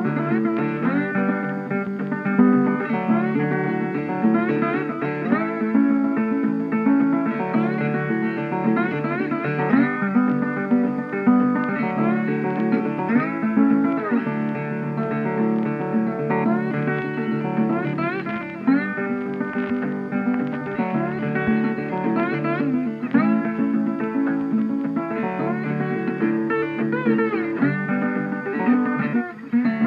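Background music: guitar playing a melodic instrumental with plucked notes and slides.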